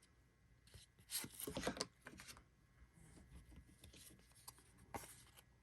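Trading cards being handled: card stock sliding and rubbing as cards are flipped through, with a burst of scratchy rustling about a second in, lighter scrapes after it, and a sharp tick near the end.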